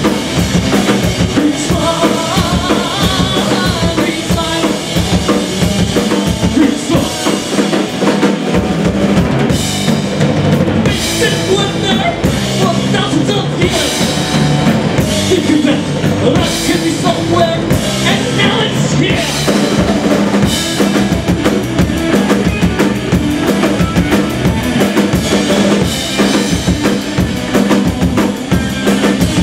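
Rock band playing live and loud: electric guitar and electric bass over a drum kit with a steady beat of bass drum and snare.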